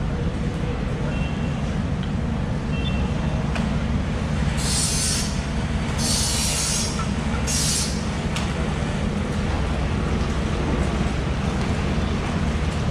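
Steady low mechanical rumble, with three short bursts of hiss about five, six and seven and a half seconds in.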